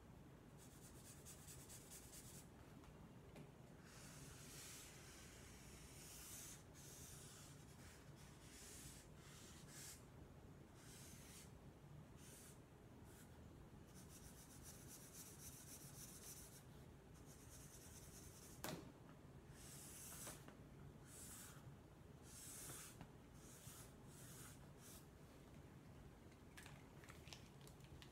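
Felt-tip markers scratching across flip-chart paper in strokes of a second or two, faint. There is one sharp click about two-thirds of the way through and a few light clicks near the end.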